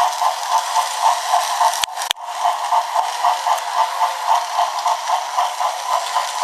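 Battery-powered toy mechanism running: a steady, rhythmic whirring clatter of about three pulses a second, with a brief click about two seconds in.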